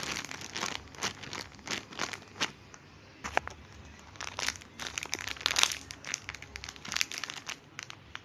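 Crinkly plastic packaging crackling and rustling in irregular bursts as a squishy toy is handled.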